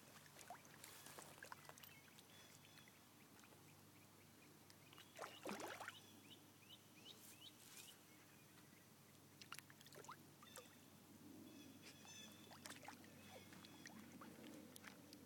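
Faint, scattered splashing in shallow pond water, most likely a Siberian husky pawing and nosing after catfish, with one larger splash about five seconds in. A few short high chirps follow just after it.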